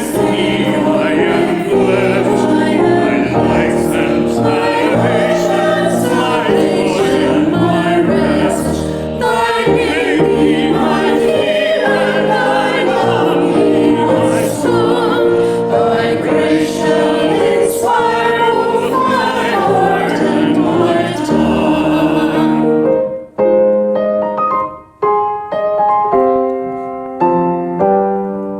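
A choir singing a hymn-like piece with piano accompaniment; near the end the voices stop and the piano plays on alone.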